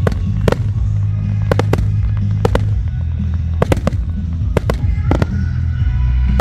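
Fireworks shells bursting in quick, irregular sharp bangs, often in pairs, about a dozen in all, over loud show music with a heavy bass.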